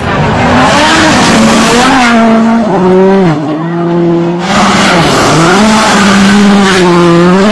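Rally car engines at high revs on gravel stages: the engine note climbs and drops through gear changes, with sharp dips about three seconds in and again about five seconds in, over a hiss of tyres and flung gravel.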